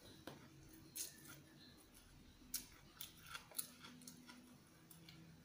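Mostly quiet, with a few faint clicks of a spoon against a plastic bowl of noodles and soft chewing, bunched between about two and four seconds in.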